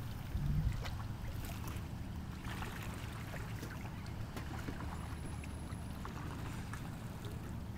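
Steady low drone of a boat's engine, with a brief bump about half a second in.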